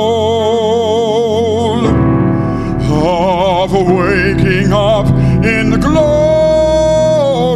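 A solo male singer sings a sacred song over instrumental accompaniment. He holds a long note with wide vibrato, moves through a short melodic passage, and holds another long note near the end.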